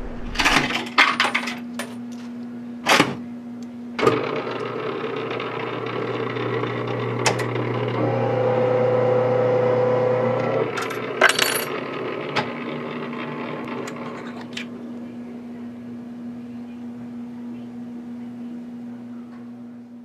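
Penny-pressing souvenir machine: coins clink into the slot, then from about four seconds in its electric motor and gear train run steadily as the penny is rolled flat. A higher-pitched whine joins for a couple of seconds in the middle, followed by a few clinks.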